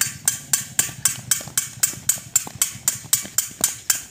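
A metal dish struck in a steady rhythm, about four sharp clinks a second: the beat to which the children circle the steel bowls on the ground in a musical-chairs-style game.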